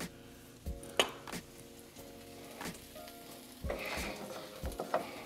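Scrambled eggs being stirred in a hot pan, with soft sizzling and a few sharp knocks of a utensil against the pan.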